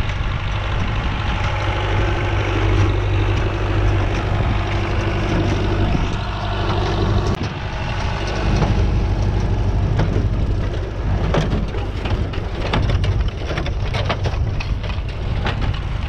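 Renault 651-2 tractor's diesel engine running steadily as it pulls a New Holland 68 square baler past at close range. In the second half the baler's working mechanism adds repeated knocking and clanking while it packs and bales the hay.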